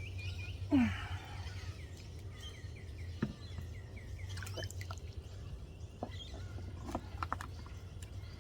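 Small birds chirping in quick repeated notes, with one loud downward-sliding call or squeak about a second in. Scattered light clicks and taps run through the middle, typical of plastic pot parts and bolts being handled.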